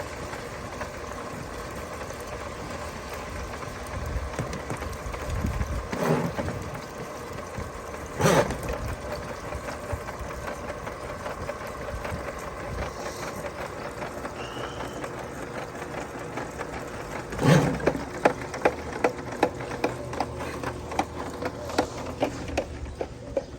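Electric drum drain-cleaning machine running steadily, its cable turning against the stoppage in a clogged sewer line. A few sharp knocks break in, and near the end the cable knocks regularly about twice a second.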